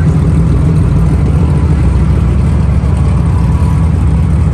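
A vehicle engine running steadily close by, a loud low rumble.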